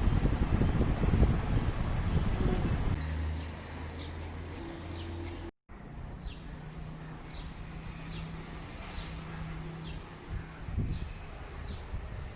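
Atomberg Efficio BLDC ceiling fan running with a thin, wavering high-pitched whine over a low rumble: the noise fault the fan developed. About three seconds in the rumble and whine stop, leaving a quieter steady hum, and faint bird chirps follow after a short dropout.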